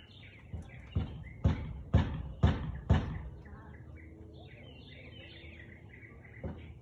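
A husky barking in a run of about six barks, about two a second, then falling quiet while birds chirp; the barking starts again near the end.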